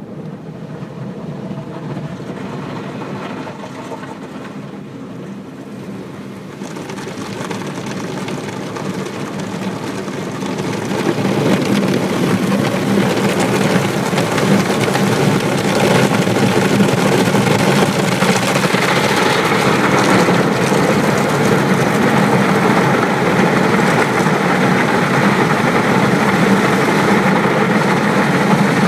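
Automatic car wash machine working over the car, heard from inside the cabin: water spraying and machinery whirring against the windshield and body. A steady rushing noise that grows louder over the first ten seconds or so, then holds.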